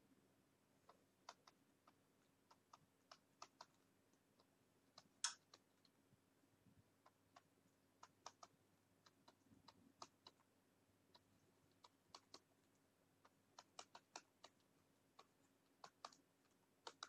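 Faint, irregular typing on a computer keyboard: short key clicks, a few at a time, with one louder click about five seconds in.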